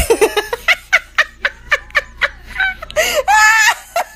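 A person laughing in quick, rapid bursts, with one longer high-pitched squeal of laughter about three seconds in.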